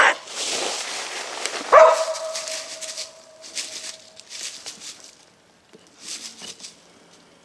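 Coon dog barking treed: one bark about two seconds in whose note trails off slowly, with footsteps crunching through thick dry brush around the tree.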